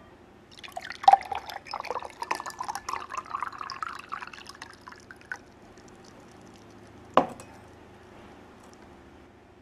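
Liquor poured from a glass bottle into a glass tumbler, glugging and splashing for about five seconds and rising in pitch as the glass fills. A single sharp knock follows about seven seconds in.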